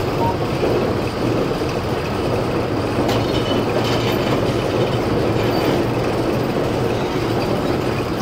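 Steam-engine-driven sawmill machinery running with a steady mechanical rumble and clatter, and a single sharp clank about three seconds in.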